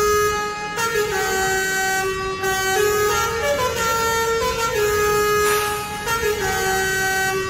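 Bus telolet horn (a basuri multi-tone air horn) playing a melody: a string of held, steady horn notes that step up and down in pitch every half second to a second.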